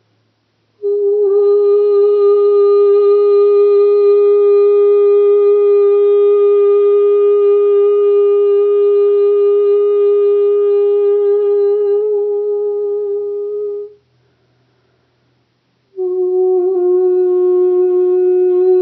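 A woman's voice toning in light singing: one long note held steady for about thirteen seconds, then after a two-second pause a second long note, slightly lower.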